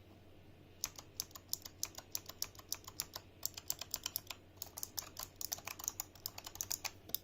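Typing on a Razer Huntsman Elite keyboard's opto-mechanical switches: irregular keystroke clicks, several a second, starting about a second in.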